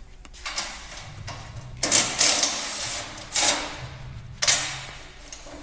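Four bursts of harsh rasping noise as a motorcycle's shipping crate and packaging are worked open, the longest and loudest about two seconds in, over a low steady hum.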